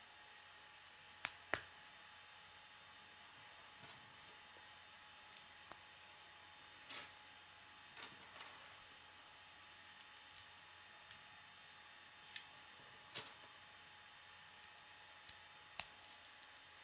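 K'nex plastic rods and connectors clicking as they are snapped together and handled: about a dozen sharp, separate clicks at irregular intervals over a faint steady hiss.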